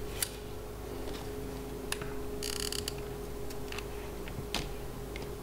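Handling of a hot glue gun over a paper plate: a few small clicks and a short creaking rasp about halfway through, over a steady faint hum.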